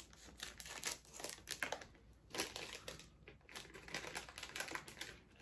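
Plastic wrapper of a Pocky snack packet crinkling and crackling in irregular bursts as it is opened and handled.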